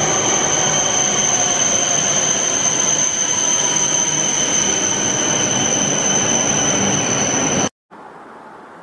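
Shinkansen bullet train running into an underground station platform: a loud, steady rush of train noise with a constant high-pitched squeal. It cuts off abruptly near the end, leaving a much quieter steady background.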